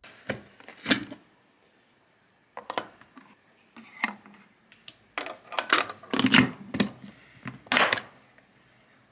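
Plastic Greek-yogurt strainer being assembled by hand: a run of clicks and knocks as the plastic inner lid and metal press spring are set in place, with a last loud knock near the end as the outer lid is pressed shut for straining the whey.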